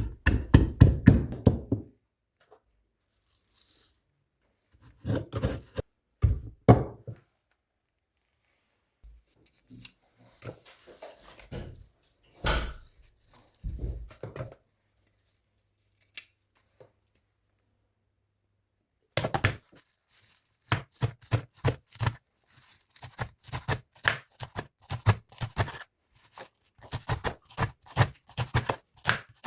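Knife chopping vegetables on a cutting board: a few irregular knocks and handling sounds at first, then, after a short pause, a steady run of chops about three a second.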